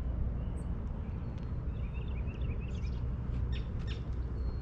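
Wind rumbling on the microphone beside open water, with a few short bird chirps about halfway through.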